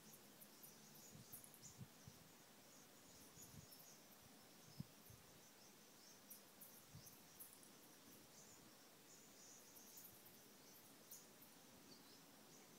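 Near silence, with faint high-pitched chirping scattered throughout and a soft low knock about five seconds in.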